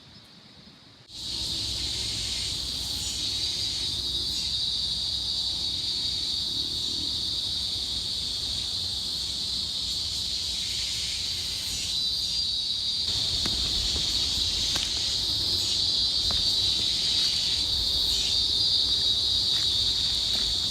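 Steady high-pitched drone of a rainforest insect chorus, starting abruptly about a second in.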